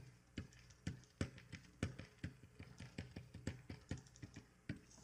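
Irregular light clicks and taps, about three a second, of computer keyboard keys and a tablet pen during digital painting, over a faint steady low hum.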